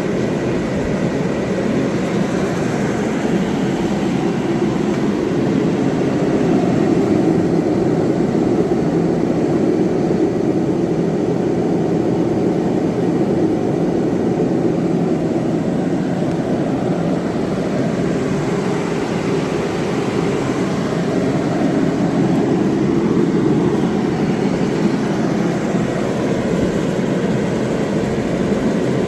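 Two propane forced-air heaters, a Mr. Heater Contractor Series 30–60,000 BTU unit and a 40,000 BTU All Pro, running together: a steady rushing noise of fan and burner flame.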